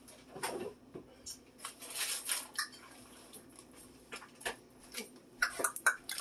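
Soft crinkling and rustling of plastic cheese bags being handled, with scattered light clicks and taps that grow busier in the last second.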